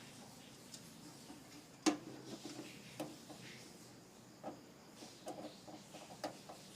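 Scattered light clicks and knocks of computer hardware being handled and fitted in a desktop PC case, with one sharp knock about two seconds in and a cluster of small clicks near the end.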